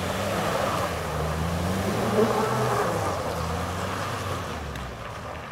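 Jeep Cherokee XJ's 2.5 turbodiesel engine revving, its pitch rising and falling, as the vehicle drives through slush and muddy water with the tyres throwing up spray. The engine sound fades near the end as the vehicle pulls away.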